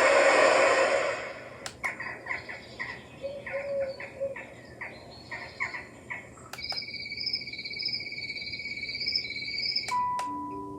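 White noise machine playing its nature sounds: a rush of noise in the first second, then recorded birdsong of quick repeated chirps, then a steady high warbling trill. A few chime notes begin near the end.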